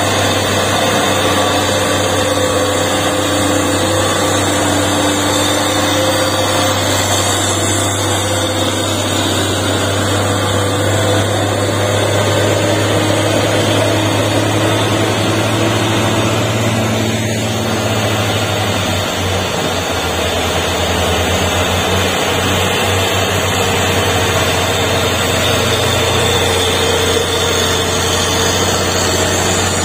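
Diesel engines of loaded cargo trucks running as they pass on the road, a steady low drone with road noise and no clear rise or fall in pitch.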